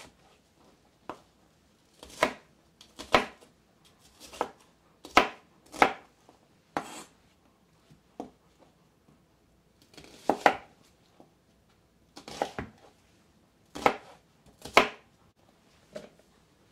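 Kitchen knife chopping onions on a cutting board: a dozen or so sharp knocks of the blade striking the board, at an uneven pace about a second apart with short pauses.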